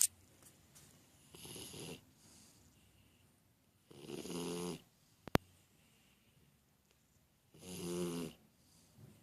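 A Shar-Pei dog snoring in its sleep: three pitched snores, a few seconds apart, the later two louder. A single sharp click comes about halfway through. The owner says such snoring is normal for the breed and not a sign of illness.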